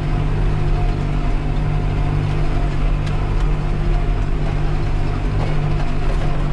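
Farm tractor's diesel engine running steadily at an even speed.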